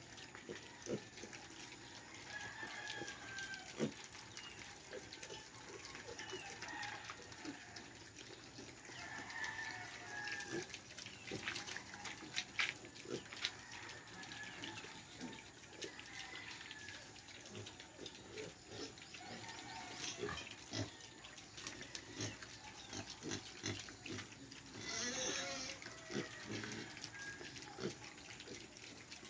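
A pen of young piglets feeding, snouts in scattered grain on a concrete floor, making dense clicking and snuffling throughout. Short grunts come now and then, and a louder squeal comes about 25 seconds in.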